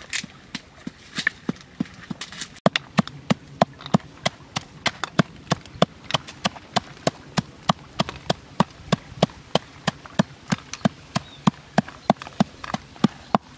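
Wooden pestle pounding salt and red chilies in a small mortar, a steady knock about three times a second.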